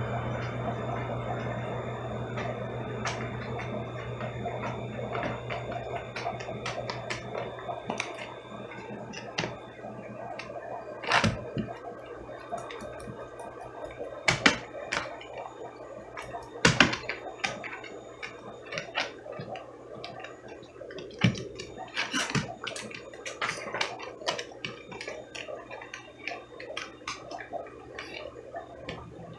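Aquarium water heard through a camera submerged in the tank: a gurgling bed of noise with a low hum that fades out over the first half. Scattered sharp clicks and pops run through it, several louder ones around the middle.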